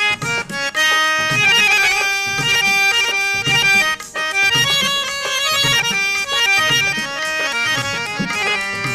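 Background music: an instrumental stretch of a Punjabi song, a reedy sustained melody over a steady drum beat.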